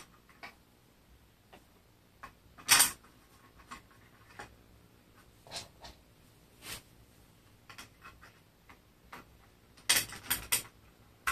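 Small screws clicking and tapping against a plastic blade cover and the mower's cutting disc as they are handled and set into the cover's holes by hand. Scattered light clicks, the loudest about three seconds in and a quick run of them near the end.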